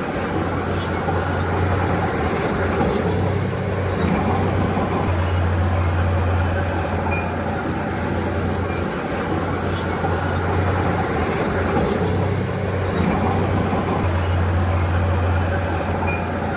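Komatsu D31P crawler bulldozer's diesel engine running under load, its low drone swelling and easing a few times, with small high squeaks and clicks from the running gear.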